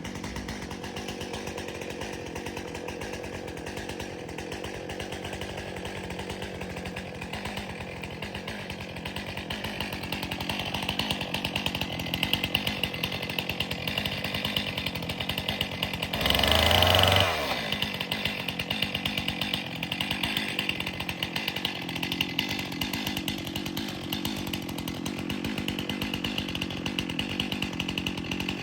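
Chainsaw running steadily, with one brief louder rev a little past halfway that then falls away in pitch.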